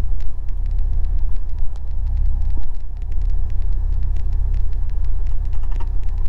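Cessna 172's engine and propeller running at low power while the plane taxis, heard inside the cockpit as a steady low drone.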